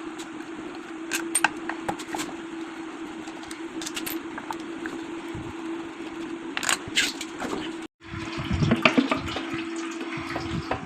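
Scattered metallic clicks and knocks of hand tools at work on the clutch side of an old Royal Enfield Bullet, over a steady hum and hiss. The sound cuts out briefly about eight seconds in.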